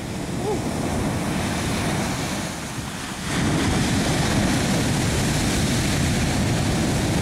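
Ocean waves breaking and washing up a sandy beach, with wind rumbling on the microphone; the surf grows louder a little over three seconds in.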